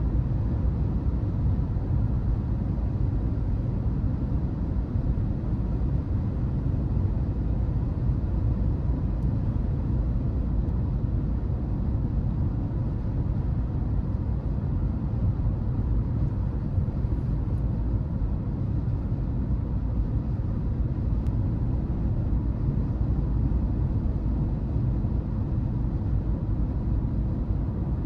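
Car driving at a steady speed: an even low rumble of engine and tyre noise.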